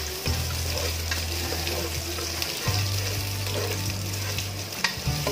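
Ginger strips sizzling as they sauté in hot oil in a pan, with the scrapes and clicks of a spatula stirring them. A low steady hum runs underneath and drops out briefly a few times.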